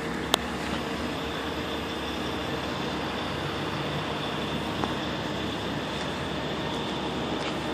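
Steady engine noise with a few faint steady tones, and one short click about a third of a second in.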